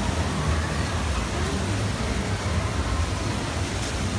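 Steady rushing outdoor noise with faint distant voices.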